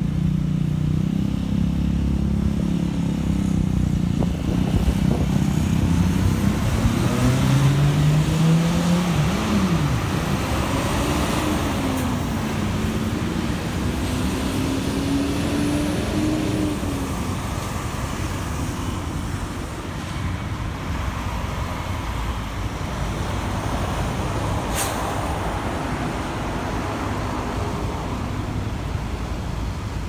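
Road traffic: a motor vehicle's engine accelerating, its pitch climbing, dropping sharply as it shifts gear about nine seconds in, then climbing again before fading, over steady traffic noise. A brief sharp click comes late on.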